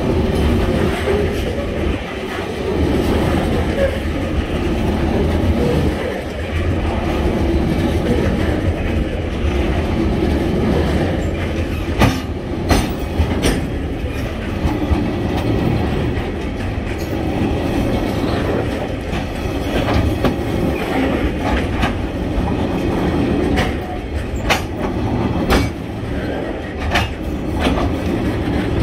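Coal hopper wagons of a freight train rolling past close by: a steady rumble of steel wheels on the rails with clickety-clack over the joints. Sharp clanks break in now and then from about halfway through.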